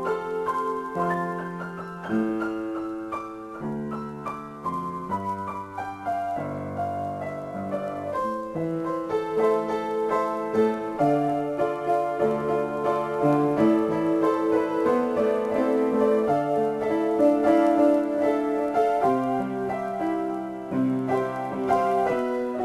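Solo piano improvisation: held chords shifting every second or so, with a melody line above them.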